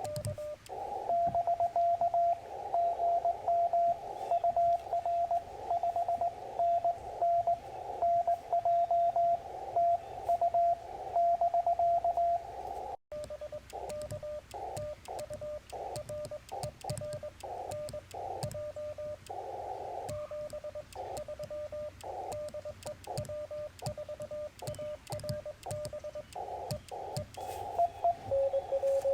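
Morse code (CW) tones from a Yaesu FT-891 ham radio transceiver. A strong, clean keyed tone runs for about the first twelve seconds. After a brief cut come weaker Morse signals at a slightly lower pitch over receiver hiss, with another, lower-pitched station near the end.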